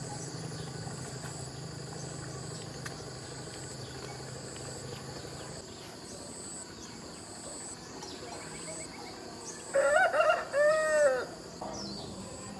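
A rooster crows once, loudly, about ten seconds in, over insects buzzing in a high-pitched chorus that pulses on and off. A faint low hum runs through the first half and then stops.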